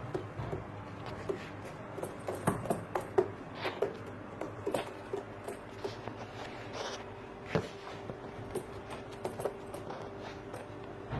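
Domestic pigeons moving about: irregular light taps, scuffles and pattering.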